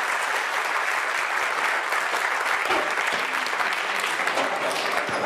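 Audience applauding steadily after a talk, many hands clapping at once.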